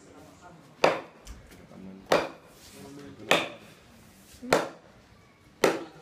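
Wood chisel struck with a wooden stick, cutting a round hole in a plywood sheet: five sharp knocks, one a little over every second.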